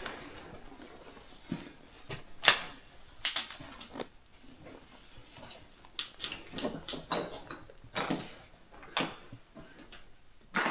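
Irregular knocks, clacks and short scuffing scrapes at no steady rhythm, the sharpest about two and a half seconds in.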